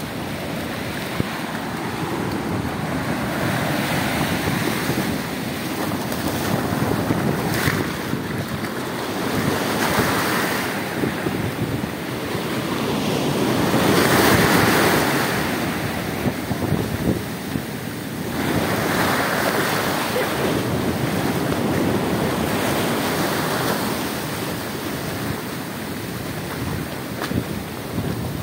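Surf washing up the beach in surges every few seconds, the loudest about halfway through, with wind buffeting the microphone.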